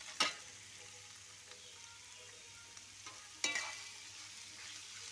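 Metal spatula scraping and knocking against a thin metal wok as peeled shrimp are stir-fried until firm: two sharp ringing scrapes about three seconds apart, over a faint sizzle.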